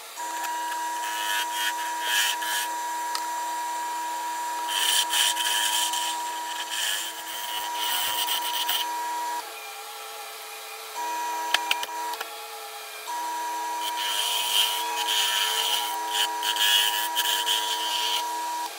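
Wood lathe motor running with a steady whine while a gouge cuts the spinning wooden bowl blank in hissing, scraping stretches. The motor sound cuts out twice briefly about halfway through, with a couple of sharp clicks in between.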